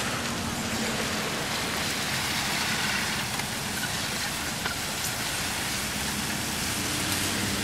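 Steady rain falling, with wind noise on the microphone, as an even hiss with no distinct events.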